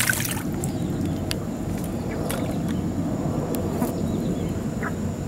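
Outdoor ambience at the swamp's edge: a steady low rumble with a thin, steady high whine over it, a few faint ticks, and small bird chirps now and then.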